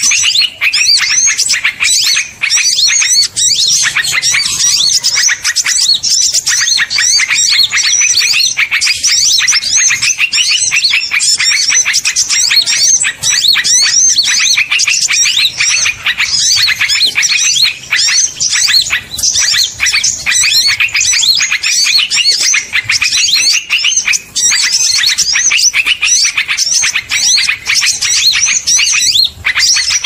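Bird-lure (pikat) track for small birds: a dense chorus of many small birds twittering and chirping rapidly and loudly, without a pause.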